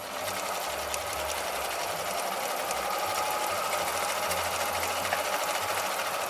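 Husqvarna 2000 electric sewing machine running steadily at speed, sewing a straight stitch with a fast, even clatter of needle strokes; it stops right at the end.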